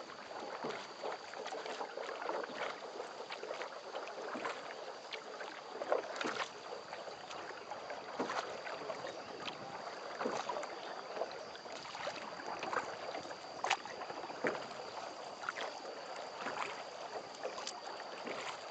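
Water splashing and lapping around a small rowboat as it is rowed, with irregular light splashes and drips from the oars.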